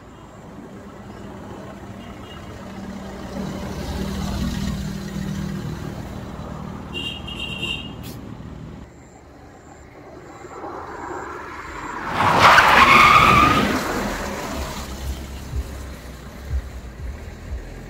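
Car driving up a muddy dirt track, its engine running under load. About twelve seconds in it revs hard for a couple of seconds while the tyres spin and skid in the mud; this is the loudest part.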